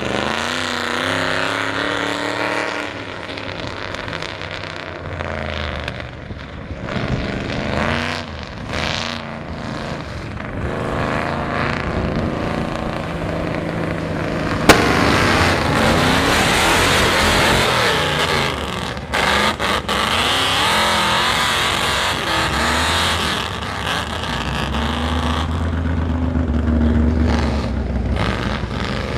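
A 1970s Ford mud truck's engine on open exhaust, revving up and down hard under load. There is a single sharp crack about fifteen seconds in.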